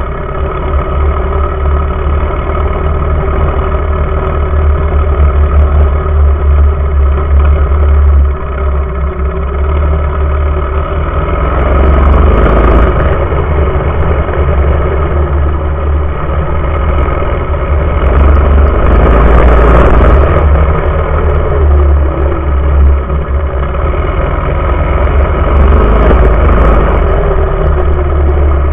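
Small mini bike engine running hard while ridden at speed, its pitch rising and falling with the throttle, heard from a camera mounted low on the bike with a heavy wind rumble on the microphone.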